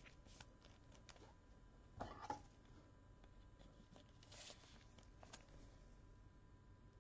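Mostly near silence with faint handling noise: a trading card being slid into a clear rigid plastic card holder by gloved hands, with a short scraping rustle about two seconds in and a softer one a little past four seconds.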